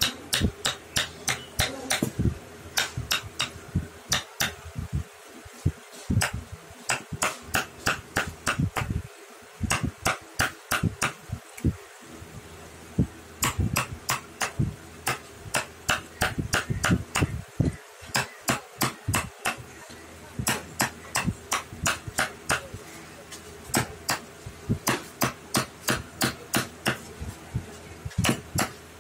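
A wooden block used as a mallet tapping a carving chisel into a wooden elephant figure: sharp, quick taps of about four a second, in runs broken by short pauses.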